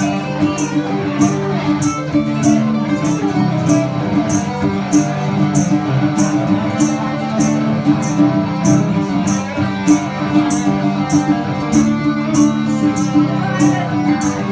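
Two electric guitars playing live music together, over a steady high ticking beat of about two ticks a second.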